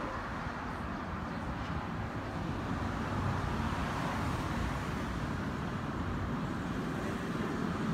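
Steady road traffic noise from cars passing on the road and overpass.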